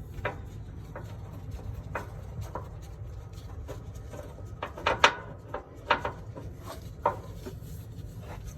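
Irregular clicks and knocks of a hand tool working on the crankcase breather line fitting as it is turned counterclockwise to loosen it, over a steady low hum. The sharpest knocks come in a cluster about five seconds in.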